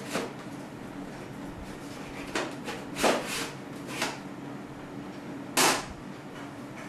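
Handling noise as a DVD drive is fitted into the drive bay of a metal PC case: a series of about five short knocks and scrapes, the loudest about three seconds in and near the end.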